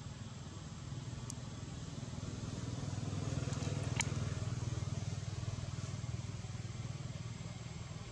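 Low engine hum of a passing vehicle, growing louder to a peak about four seconds in and then fading. There is a light click after about a second and a sharp click at the loudest point.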